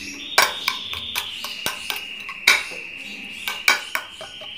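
Onion being grated on a metal grater: irregular scraping strokes and clinks against the grater and bowl. A steady high-pitched tone runs underneath.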